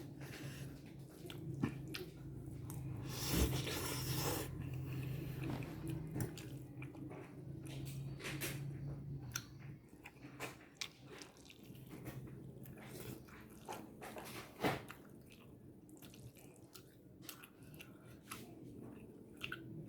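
A person chewing a mouthful of fried instant noodles close to the microphone, with many small, irregular mouth clicks. A low steady hum sits underneath for about the first half and again briefly later.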